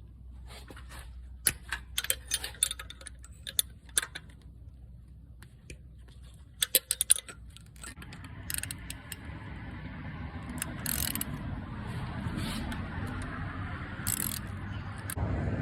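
Scattered sharp metallic clicks and clinks of hand tools and car parts being handled for about the first half. Then a steady low rumbling noise comes in and slowly grows louder, with a few short hissy bursts.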